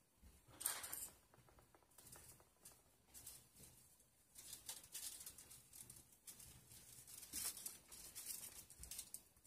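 Faint rustling and light knocks of clothes and belongings being handled and sorted, with a louder rustle just under a second in.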